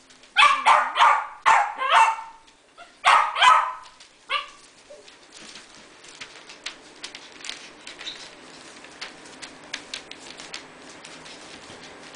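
Havanese puppy barking, a quick run of high, sharp yaps over the first few seconds with a last one at about four and a half seconds. After that only faint light clicks and rustling.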